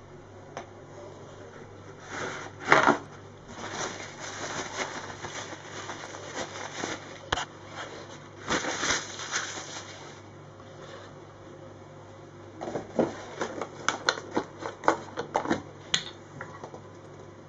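Handling noises on a kitchen counter: scattered clicks, knocks and rustling as objects and kitchen paper are moved about, with one louder knock about three seconds in and a quick run of clicks near the end, over a faint low hum.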